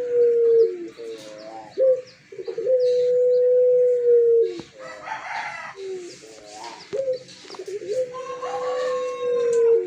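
Puter (Barbary dove) cooing: three long, drawn-out coos of about two seconds each, each held on one pitch and dropping at the end, with short rising notes between them.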